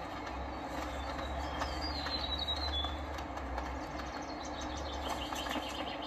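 Steady low rumble under a hiss of outdoor ambience, with a few short, high bird chirps about two seconds in.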